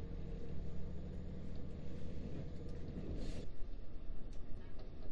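Running noise inside a KiHa 40 diesel railcar: a steady low engine drone with faint ticks that drops away about three and a half seconds in, together with a brief hiss.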